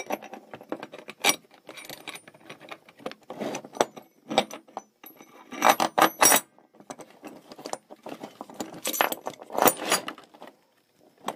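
Steel bar and bolts of a homemade camshaft holding tool clinking and rattling as they are handled: an irregular scatter of metallic clicks, with louder clusters about six and ten seconds in.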